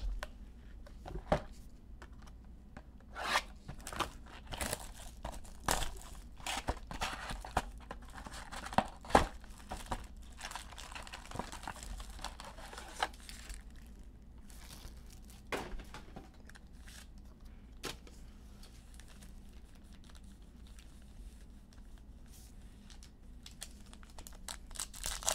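Panini Illusions basketball card packs being torn open, wrappers tearing and crinkling in irregular bursts with scattered handling clicks; the loudest is a sharp click about nine seconds in.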